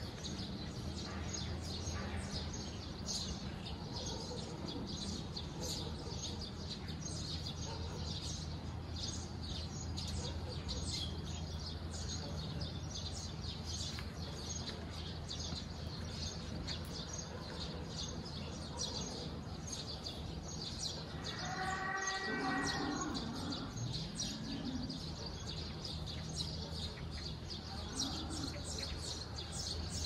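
Small songbirds chirping and tweeting over and over, with a steady low hum of background noise underneath. A brief louder pitched call rings out about two-thirds of the way through.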